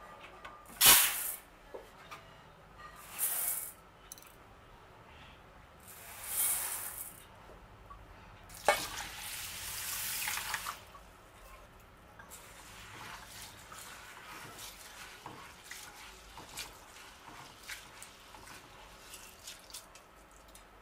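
Water running and splashing in four short bursts, the longest about two seconds, followed by faint scattered clicks and clatter.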